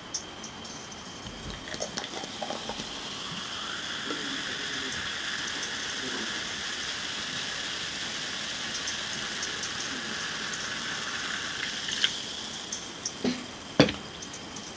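Cola poured into a glass mug, then fizzing steadily as the foam rises and settles, with small crackles in the hiss. Near the end come a few sharp clinks and knocks, the loudest about a second before the end.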